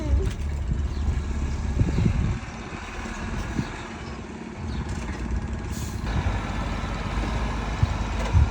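Heavy diesel engine of construction machinery running under load, a steady low drone that eases off for a couple of seconds and then builds again about halfway through.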